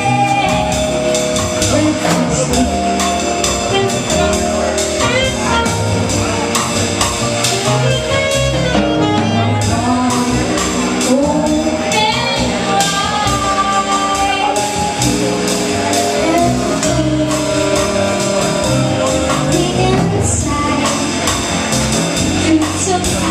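A woman singing a slow jazz ballad into a microphone with a live combo of piano, bass and drums behind her.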